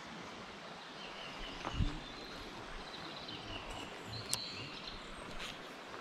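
Steady outdoor background noise with a few faint bird calls. There is a low knock about two seconds in and a couple of sharp clicks a little after four seconds.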